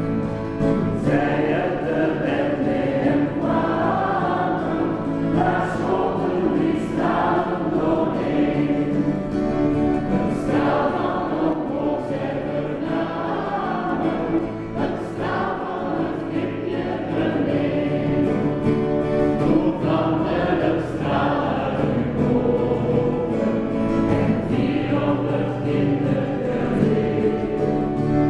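Choir singing.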